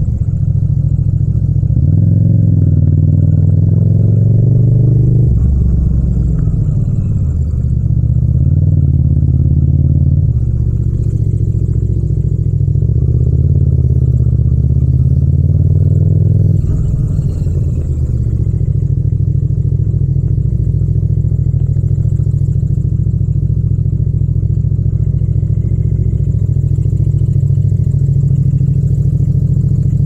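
Yamaha MT-07 (FZ-07) 689 cc 270° parallel-twin engine and exhaust at low speed in a low gear, with small rises and falls in revs as the throttle is worked. From about 17 seconds in it settles to a steady, even low note as the bike idles toward a stop.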